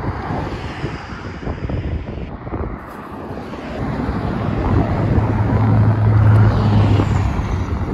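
Wind rumbling on the microphone while riding, with the low hum of passing road traffic swelling to its loudest about six seconds in, then fading.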